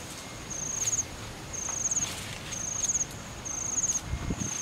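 An insect calling in short, high-pitched trills about once a second. Under it, grass and weeds rustle as they are pulled up and tossed, with a low thump near the end.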